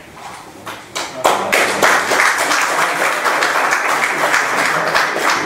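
Audience applauding: a few scattered claps, then full applause about a second in.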